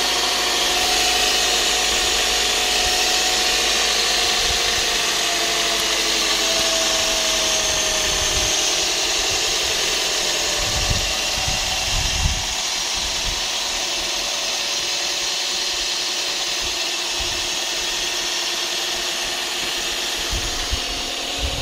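2003 Toyota Vios engine running steadily on fresh oil and a new oil filter, with an even hiss over it and a few low rumbles after the halfway point.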